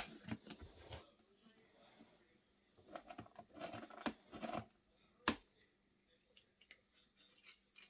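A cat rooting in a plastic tub of dry cat treats: small rattles and crunches of treats against the plastic, with one sharp click about five seconds in.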